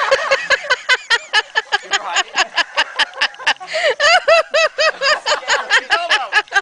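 A person laughing hard, a rapid unbroken run of high-pitched ha-ha pulses, about seven a second.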